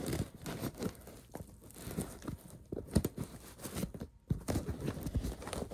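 Cardboard package being cut and torn open by hand: irregular scrapes, snips and crinkles.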